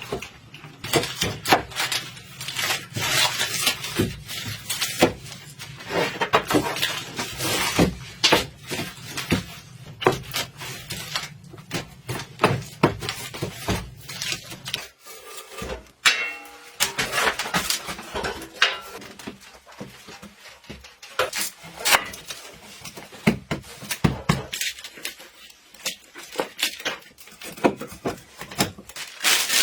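Irregular knocks, clicks and clatters of objects being handled, with a faint low hum under the first half that stops about halfway through.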